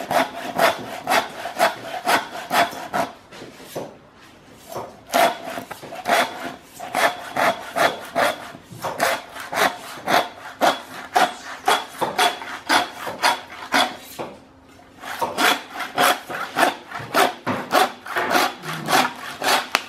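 Hand saw cutting through beef bone in a hanging steer's back leg, with quick back-and-forth strokes of about three a second that stop briefly twice.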